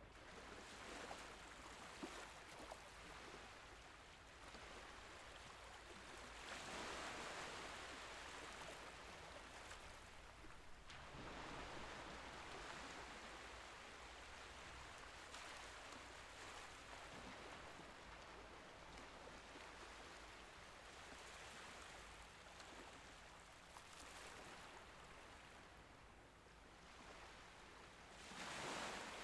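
Faint, gentle waves of the Mediterranean Sea washing in, with two louder washes swelling up, one about seven seconds in and another near the end.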